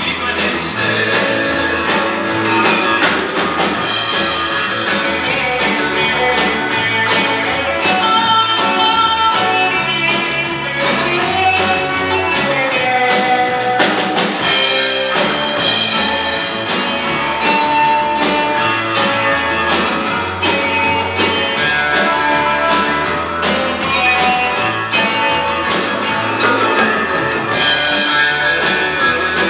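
Live gospel band playing an instrumental passage: electric guitars, bass, keyboard and drum kit, with little or no singing. The sound comes from an old VHS tape recording.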